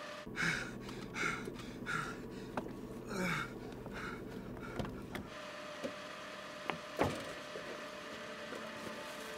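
A low steady hum inside a car, with short ragged gasping breaths about every 0.7 seconds. After about five seconds the hum stops, and a few sharp clicks and knocks follow, the loudest about seven seconds in.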